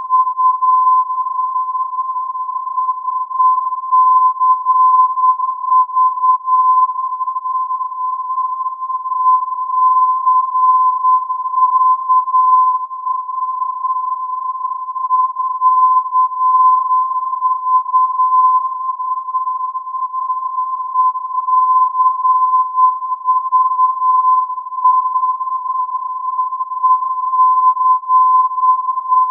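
Colmenar 'ECV' non-directional aviation beacon received on AM at 319 kHz: its 1020 Hz modulation tone heard as one steady whistle, wavering slightly in level.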